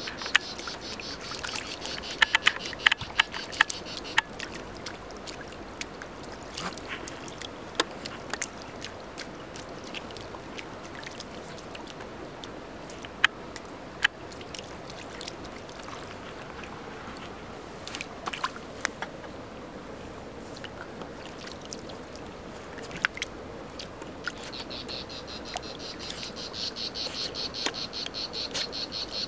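Insects chirping in a fast, steady pulsing trill, plain at the start, fading in the middle and returning strongly near the end, with scattered sharp splashes as a miniature pinscher paws at a crayfish in shallow water.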